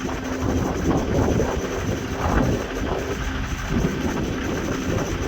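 Strong wind gusting and buffeting the microphone in a loud, uneven rumble, over a faint steady hum.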